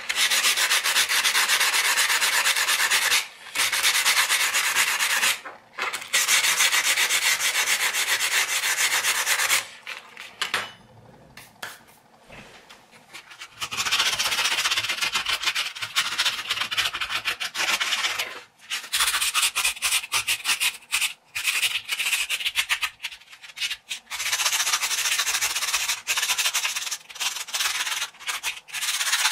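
Emery cloth rubbed by hand against the stainless steel parts of a Zero Tolerance 0560 knife: fast back-and-forth rasping strokes smoothing down the rough jimping. The sanding stops briefly twice, then lulls for a few seconds about a third of the way through, and afterwards goes on in shorter, choppier strokes.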